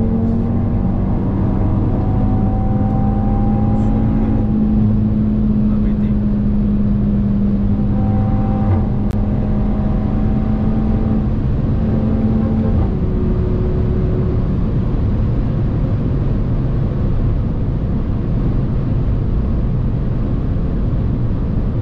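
Inside an Audi hatchback cruising on a motorway: steady engine drone and road and tyre rumble, with the engine's pitch settling lower about 13 seconds in.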